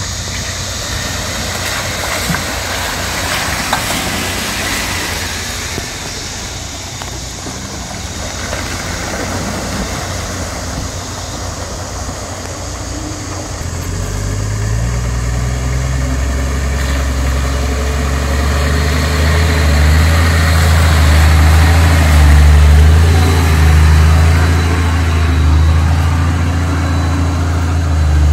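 Four-wheel-drive engines crawling along a muddy track. From about halfway in, a Toyota LandCruiser 60 Series' engine comes in low and steady and grows louder as the truck nears and pushes through mud and water.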